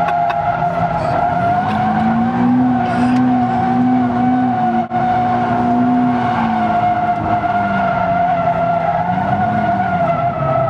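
Nissan 370Z's tyres squealing in one long unbroken skid, with the stability control (ESP) switched off. Its 3.7-litre V6 sounds underneath, the revs rising and falling a few times, heard from inside the cabin.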